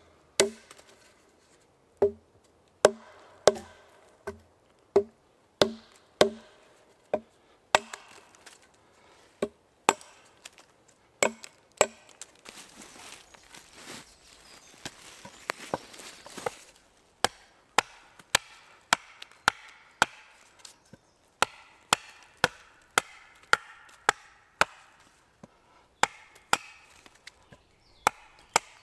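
Axe blows chopping a point onto a wooden stake held upright on a stump: sharp wooden chops, about one every two-thirds of a second at first and quickening to about two a second in the second half, with a few seconds of softer noise between them midway.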